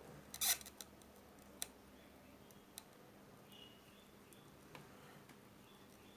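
Scattered small clicks and ticks of hand tools and small parts being handled on a workbench: a quick cluster of clicks about half a second in, then single sharp ticks every second or so.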